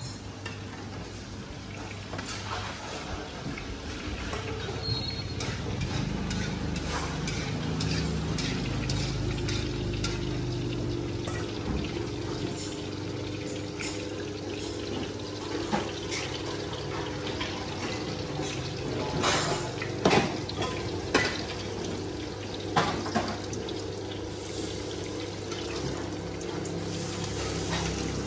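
Bánh xèo frying in deep oil in several woks: steady sizzling over a low hum, with a few sharp clinks of metal utensils against the woks around twenty seconds in.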